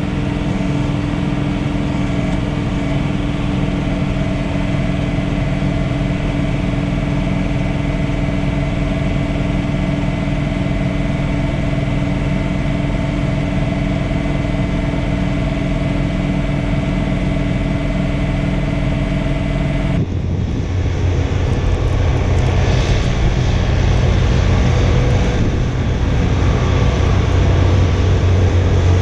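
John Deere 3046R compact tractor's diesel engine and its PTO-driven front snowblower running steadily under load, heard from inside the cab as a steady multi-tone hum. About two-thirds of the way through, the sound switches to the tractor and blower heard from outside: deeper, and growing a little louder as the machine approaches.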